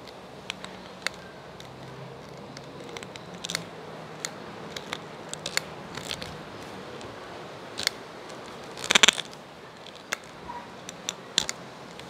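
Small plastic-and-brass handling sounds as a clear siphon tube is pushed onto the brass fitting inside a foam cannon's plastic bottle cap: scattered light clicks and rubbing, with a louder cluster of clicks about nine seconds in.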